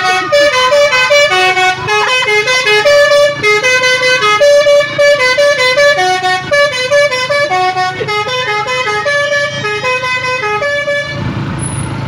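Bus's Basuri telolet horn, a multi-tone air horn, playing a fast tune of shifting notes; it stops about eleven seconds in.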